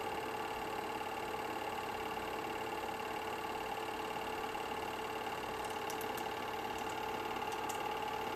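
Film projector running: a steady mechanical whir with a couple of held tones and a few faint ticks in the second half.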